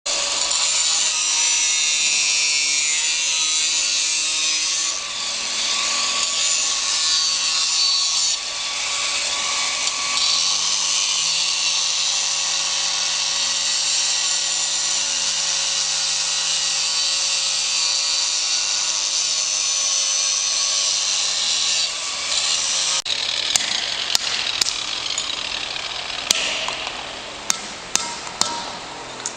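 Angle grinder with a diamond disc grinding Carrara marble: a steady high grinding noise over a faint motor whine. About 23 s in it stops abruptly, and a run of separate sharp taps on the stone follows, coming closer together near the end.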